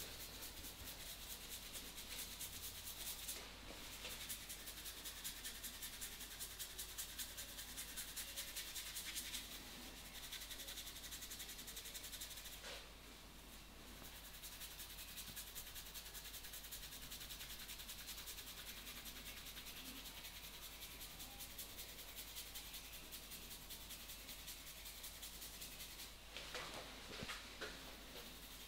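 Hands rubbing and kneading a head and hair in an Indian head massage, a faint rhythmic rubbing at about two to three strokes a second for the first several seconds, then steadier and quieter, with a few brief louder rubs near the end.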